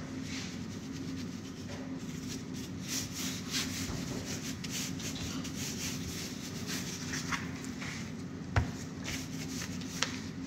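Plastic-gloved hands rubbing and patting seasoning into raw salmon fillets on a plastic tray: repeated soft rustling, rubbing strokes over a steady low hum. A sharp knock comes near the end as a fillet is handled and turned over.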